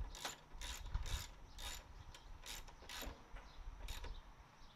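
Hand socket ratchet clicking in short runs, roughly one run every half second, as 10 mm bolts are driven in and tightened; the clicks thin out near the end.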